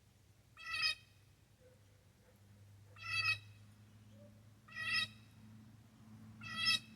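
Blue jay giving four harsh, nasal jeer calls, evenly spaced about two seconds apart, over a faint steady low hum.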